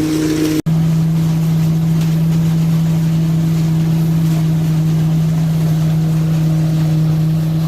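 A motor running at a steady speed, a constant loud hum with a couple of overtones. It drops out abruptly less than a second in, then carries on at a slightly higher pitch.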